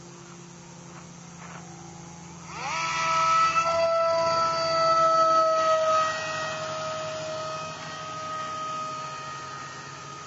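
Electric motor and propeller of a Bixler foam RC plane spinning up, a quick rising whine about two and a half seconds in that settles into a steady high whine, sagging slightly in pitch and fading gradually over the following seconds.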